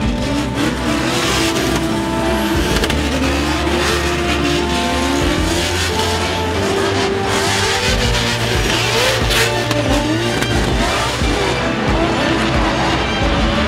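Drift car engine revving hard, its pitch rising and falling again and again as the driver works the throttle through a run, with tyre squeal, over background music.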